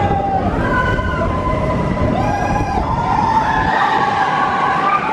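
Riders screaming in several long, wavering, overlapping cries over the steady low rumble of the Expedition Everest roller coaster train.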